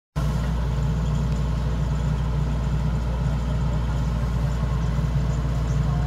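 Kubota DC-150X rice combine harvester's diesel engine running steadily at a constant drone, with the machine working as its unloading auger discharges grain into sacks.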